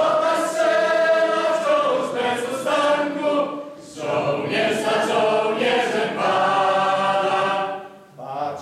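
Mixed men's and women's voices of a folk song-and-dance ensemble singing a slow Polish soldiers' song together in long held notes, two phrases with a short breath break about four seconds in.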